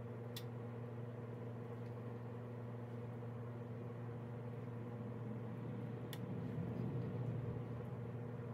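A steady low electrical hum, with two faint light ticks from the stick touching the chocolate-dipped cookies as white dots are dabbed on.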